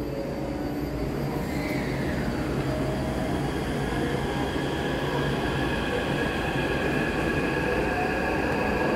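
Taipei Metro C381 electric train pulling out of an underground station: a low rumble of the wheels and running gear, with several steady motor whines that come in about two seconds in as it gathers speed, the whole sound growing gradually louder.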